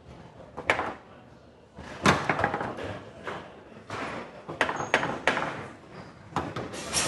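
Foosball table in play: irregular sharp clacks and knocks of the ball and rods, about a dozen, with a quieter stretch about a second in and a quick run of knocks after the midpoint.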